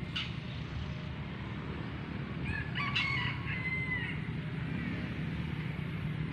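A rooster crowing once, starting about two and a half seconds in and ending on a drawn-out note. A short bird chirp right at the start, over a steady low background rumble.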